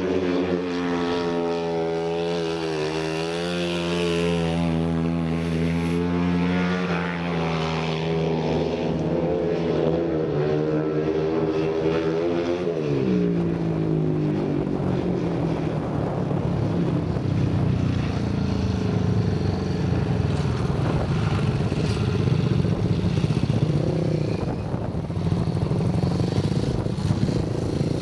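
Speedway motorcycle's single-cylinder methanol engine running hard, its revs rising and falling as the bike slides through the turns. About halfway the pitch drops and the engine settles to a lower, rougher note.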